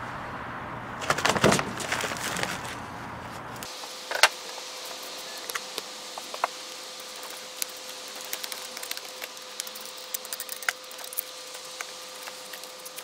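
Sand mould being broken out of its wooden flask into a plastic tub: a rush of crumbling, falling sand about a second in, then a small hand tool scraping and clicking through the packed sand to dig out a freshly poured cast-iron casting, over a faint steady hum.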